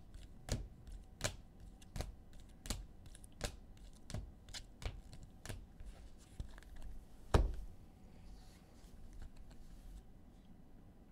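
A run of sharp light clicks, about one every three-quarters of a second, then a single louder knock about seven seconds in.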